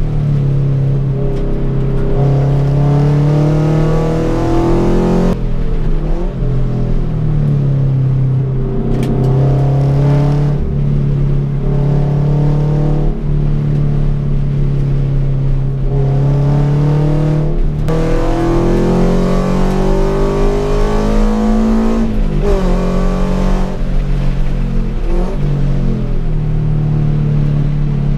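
Toyota GT86's flat-four engine heard from inside the cabin on track, revving up hard under acceleration and dropping in pitch several times with gear changes and lifts for corners.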